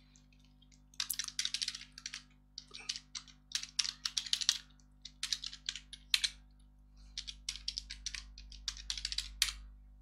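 Computer keyboard typing: quick runs of keystrokes in several bursts with short pauses between them, starting about a second in.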